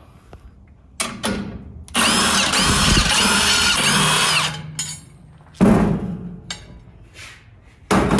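Small cordless impact wrench with a 9/16 inch socket, backing out the bolts that hold a beadlock ring to the wheel. It runs hard for about two and a half seconds from about two seconds in, its pitch rising and falling, with shorter bursts before and after.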